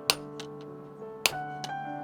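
Hand hammer blows on hot steel, two strong ringing strikes about a second apart with lighter taps between them, over background music.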